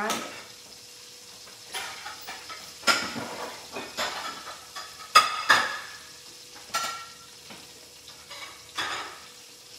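Several separate clinks and knocks of kitchen cookware and utensils being handled, some with a brief metallic ring, over a faint steady hum.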